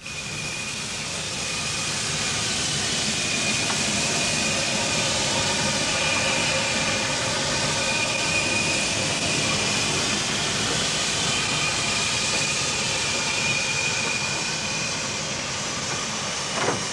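Garratt steam locomotive No. 395 and its train running along a station platform: a steady rushing noise with a thin high squeal held through most of it.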